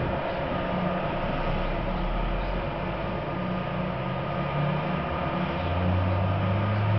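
Seismic vibrator (Vibroseis) trucks running: a steady mechanical drone with a low hum that shifts higher, to a stronger tone, about five and a half seconds in.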